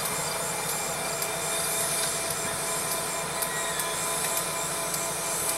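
Diesel road-switcher locomotive idling while standing, a steady mechanical hum with faint steady tones.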